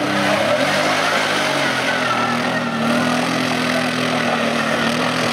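Quad bike (ATV) engine running steadily under load as it climbs the muddy course; the pitch rises a little over the first couple of seconds, then holds.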